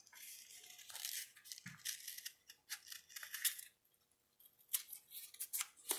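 Scissors snipping through kinesiology tape and its paper backing, cutting a small hole: a scatter of short, quiet snips with the tape rustling in the hands, and a brief pause about four seconds in.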